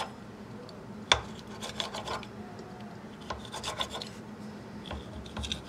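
Pizza-cutter wheel rolling and scraping through a log of dough against a stone countertop, cutting it into pieces, with a sharp click about a second in.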